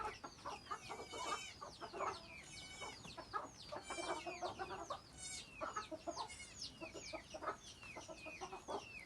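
Chickens: a crowd of chicks peeping, many short high calls that fall in pitch, overlapping continuously, with some lower hen clucks mixed in.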